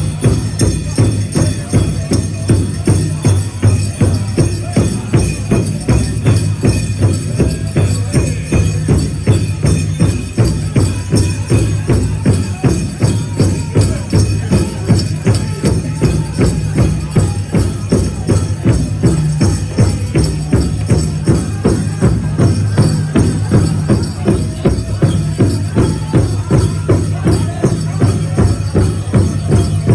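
Powwow drum group performing: a large drum struck in a fast, steady, even beat by the drummers together, with singing over it.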